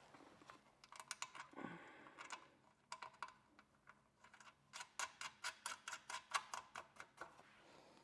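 Faint, quick clicks of a hand tool turning in a screw. They come in short groups at first, then as a steady run of about four a second through the second half.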